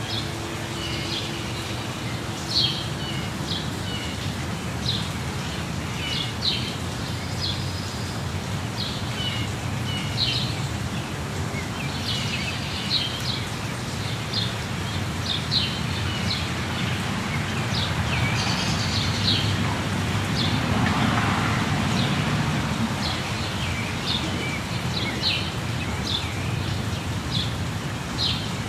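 Birds chirping in quick, repeated short calls over the steady rush of a waterfall.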